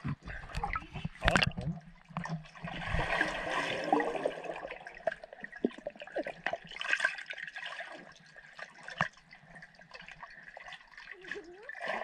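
Swimming pool water heard through an underwater camera: rushing and bubbling water from a swimmer moving underwater, with heavy low thumps in the first two seconds and louder spells of rushing around three to four seconds in and again near seven.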